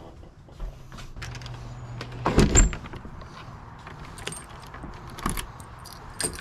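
Keys jingling and a door being handled, with a string of sharp clicks and one heavy knock about two and a half seconds in; a low hum stops just before the knock.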